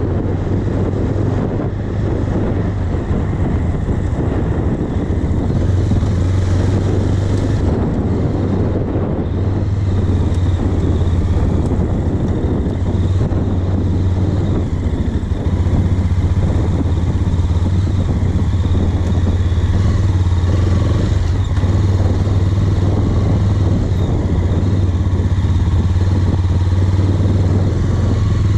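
Motorcycle engine running steadily as the bike rides over grass, a continuous low drone with a rushing noise over it, getting slightly louder about halfway through.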